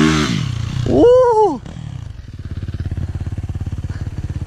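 A dirt bike revs away through a berm, a loud shout of "woo" comes about a second in, and then a two-stroke Yamaha YZ250X sits idling close by with a fast, even putter.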